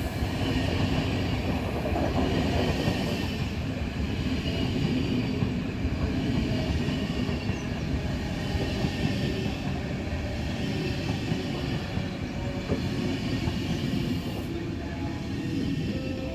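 Swiss SBB passenger coaches rolling along the platform track, a steady rumble of wheels on rail.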